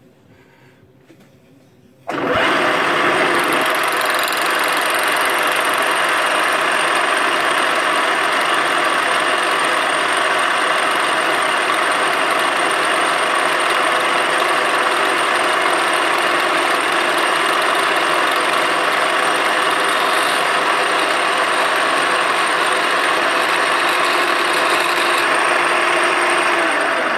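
Benchtop milling machine spindle switched on about two seconds in and running loud and steady, spinning an edge finder to locate the edge of the workpiece. It stops near the end.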